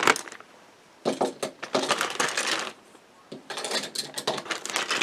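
Small hard plastic toy pieces, vintage My Little Pony Show Stable accessories, clicking and clattering against each other as they are handled and set down. The clatter comes in stretches broken by two short pauses.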